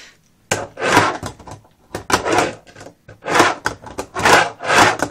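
Fingerboard wheels rolling back and forth across the ramps of a quarter-pipe set, in a series of short rolling passes, one after another.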